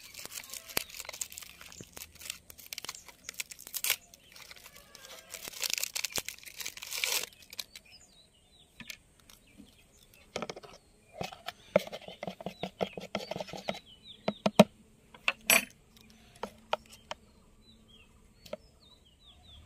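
Plastic wrapper of a disposable syringe being torn open and crinkled for about the first seven seconds. Scattered plastic clicks and taps follow as the syringe is handled and used to draw up liquid.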